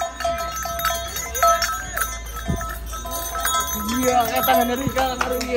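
Gamelan accompaniment for a kuda lumping (ebeg) dance: metal gong-chimes and metallophones struck in a quick repeating pattern, about two ringing strikes a second. From about four seconds in, a long held wavering note joins them.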